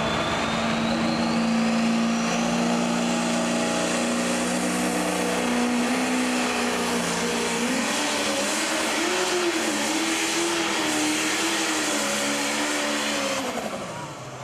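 Pro stock pulling tractor's turbocharged diesel engine running at full throttle under load while pulling the sled, with a rising turbo whine at the start. Halfway through the engine pitch wavers up and down as the tractor bucks with its front wheels lifting. Near the end the pitch drops and the noise falls away as the throttle comes off at the end of the pull.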